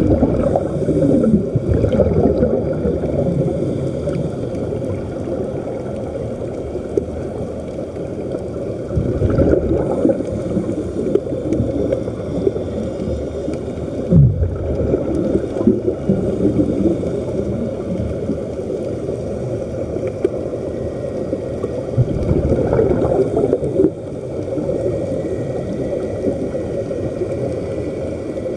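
Muffled underwater churning and gurgling of air bubbles streaming up from helmet-diving helmets, heard through water, with a few louder swells.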